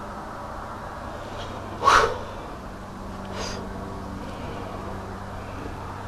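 A person's short, sharp, loud breath about two seconds in, then a fainter breath about a second and a half later, over a low steady hum.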